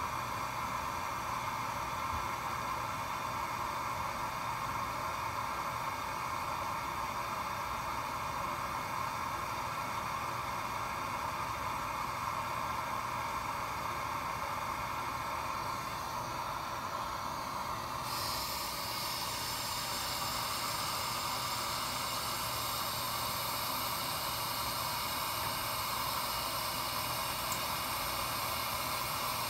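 Steady hiss of air flow and fans from a Finetech Fineplacer Core BGA placement and rework station. A brighter, higher hiss switches in suddenly about two-thirds of the way through.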